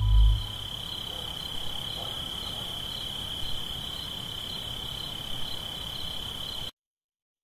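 An insect trilling steadily at one high pitch over a faint background hiss; it cuts off abruptly near the end.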